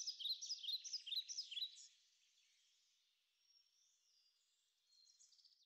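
Faint birdsong: a small bird's repeated short, falling chirps, stopping about two seconds in, then near silence with a few faint high chirps near the end.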